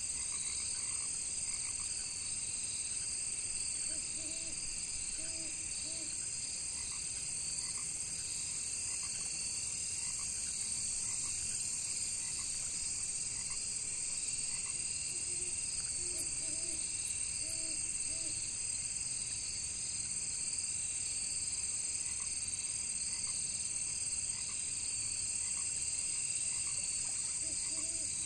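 Evening pond chorus: crickets trilling steadily in several high-pitched bands, with frogs croaking in short bouts of a few low calls, about four seconds in, again midway and near the end.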